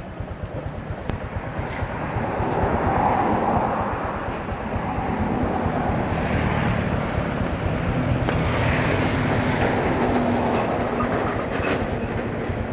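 Honda Future Neo GT's 125 cc single-cylinder four-stroke engine idling with a steady, rapid low putter, getting louder about two seconds in.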